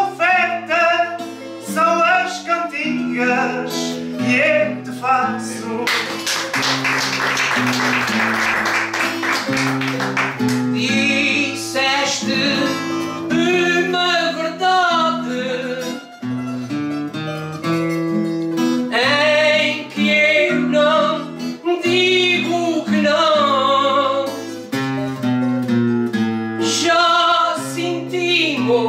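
Live folk singing: a voice singing over plucked and strummed acoustic guitars. From about six to ten seconds in, a loud wash of noise covers the music.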